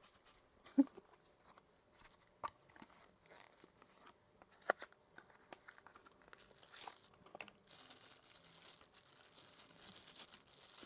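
Faint handling of packaging while accessories are unboxed: scattered light clicks and knocks, then from about eight seconds in a steady soft crinkling.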